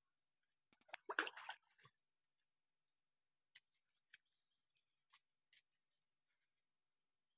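Light clatter and knocks of plastic plates and bowls being handled on the ground: a short cluster of rustling clicks about a second in, then a few single clicks.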